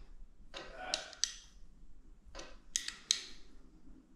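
Small ratchet clicking in two short runs as the camshaft thrust plate bolts (7/16 in heads) are nipped up on the engine's front plate.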